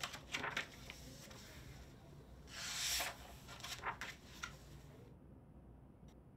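Paper pages of a spiral-bound sketchbook turned by hand, making a few short swishes and rustles, the loudest about three seconds in, then going quiet after about five seconds.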